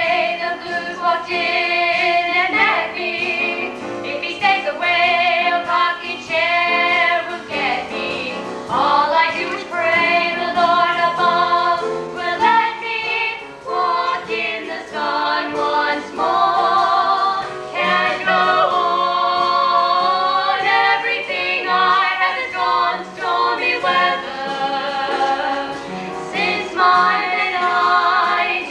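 Four teenage girls singing a song together, their voices wavering with vibrato.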